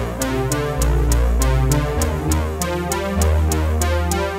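Electronic background music: synthesizer over a steady beat of about four hits a second and a deep bass line.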